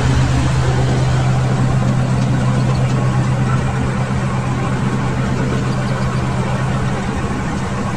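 Preet tractor's diesel engine running steadily, heard close from the driver's seat.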